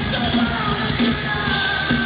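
Live rock band playing a song with a steady beat, a man's sung voice held over drums and guitars.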